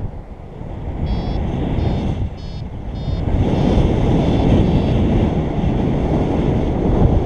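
Wind buffeting the microphone in flight, growing louder about halfway through. A paragliding variometer gives short, regularly repeated high beeps over it, the beeping that signals the glider is in rising air.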